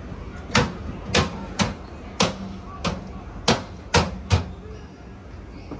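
About eight sharp knocks or taps at uneven intervals, with a faint steady low hum underneath for a couple of seconds in the middle.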